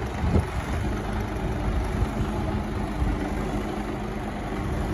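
Mercedes-Benz Actros 2551 tractor unit's straight-six diesel running steadily at low revs as the truck crawls along, with a brief thump about half a second in.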